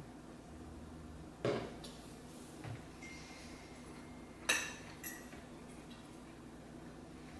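Cutlery clinking against a plate four times, the loudest clink about four and a half seconds in, with a brief ring after it.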